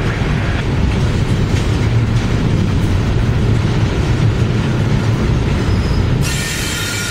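Freight train's double-stack well cars rolling past close by, a steady low rumble of steel wheels on rail. About six seconds in, a high-pitched wheel squeal of several steady tones sets in.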